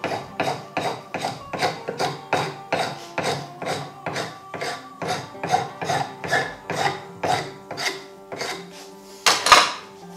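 A rasp worked in quick, even strokes across a wooden axe handle held in a vise, about two to three strokes a second, with one louder, longer scrape near the end. The handle is being shaped down to fit the axe head.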